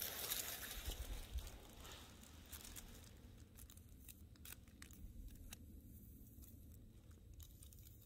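Faint crinkling and rustling of dry tinder and leaves being handled to light a campfire. The rustle dies down after about two seconds, leaving scattered sharp ticks.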